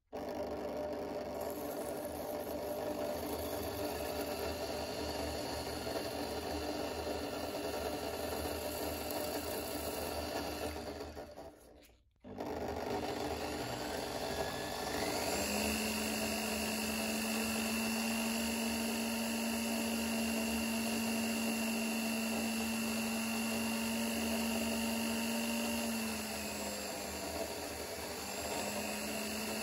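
Electric drill running, spinning a small bolt while an abrasive strip is held against its head to grind it. After a brief break about twelve seconds in, the drill runs again, and from about fifteen seconds in a steady whine joins as a felt polishing wheel works the spinning bolt head, dipping briefly near the end.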